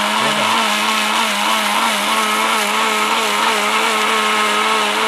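Orpat 1600-watt blender motor running steadily at speed 2, a high, even whine as its stainless steel jar grinds ginger with a little water into paste.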